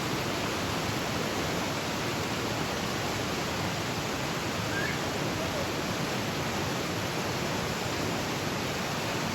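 Steady rush of river water tumbling over rocks, an even, unbroken noise.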